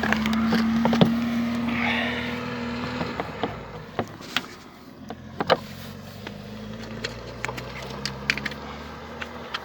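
Lada Granta running with a steady hum, which drops away about three seconds in, and scattered sharp clicks and knocks: the rattle from inside the right passenger door card.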